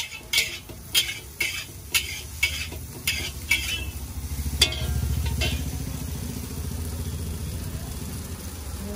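Metal spatula striking and scraping an iron wok as noodles are stir-fried, about two clangs a second. The strikes stop about halfway through, the last one the loudest, and a low steady rumble takes over.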